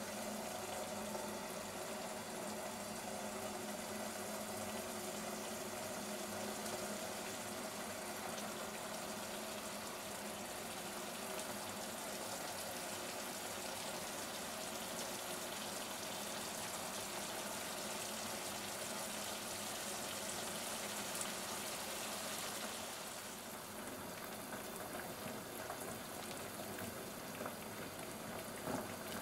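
Pot of water boiling on the stove with sausages and squid-ink spaghetti cooking in it: a steady bubbling hiss that softens a little about six seconds before the end.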